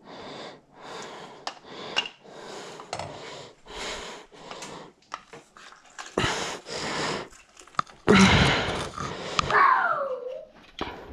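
Steady, wheezy breathing about once a second, then a cooked potato squished through a plastic potato ricer. The squeeze is the loudest part, and a short falling squeak follows as the handles close.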